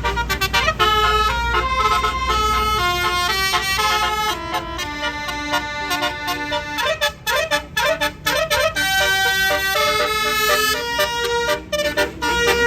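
Bus's Basuri telolet horn playing a melody, a string of held notes stepping up and down in pitch with a quick run of short, bending notes in the middle.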